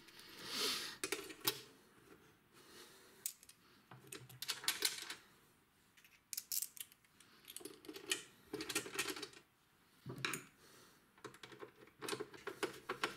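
Faint, irregular metal clicks, taps and short rattles: a metal carrying handle being set against the sheet-metal case of a Keysight E3632A power supply and its screws turned in by hand.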